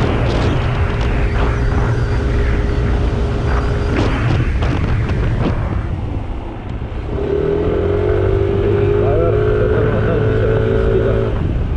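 Yamaha NMAX 155 scooter riding along as it slows down, its engine drone under heavy wind rushing over the action camera's built-in microphone.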